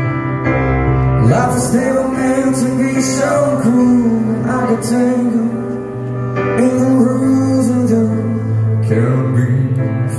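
Male voice singing a slow ballad over grand piano chords; the voice comes in about a second in, with a short break in the middle before the next phrase.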